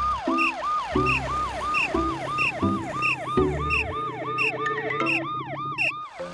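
Cartoon emergency siren sound effect in a fast yelp, sweeping up and down about three times a second, over background music. It cuts off just before the end.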